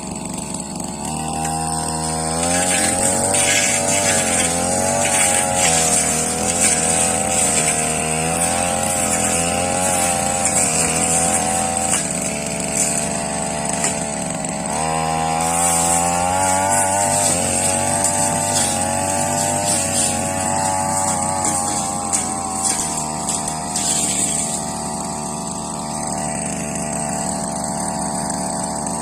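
Two-stroke brush cutter engine revving up to high speed twice, each time held for several seconds with a wavering pitch as the blade bites into grass and saplings, then dropping back to a low steady idle near the end.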